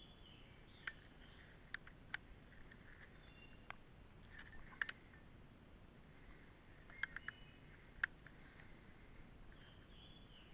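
Sparse light clicks, some in quick pairs and triplets, as a chainsaw chain is handled and pulled round the bar by gloved hands during hand filing. Faint bird chirps behind.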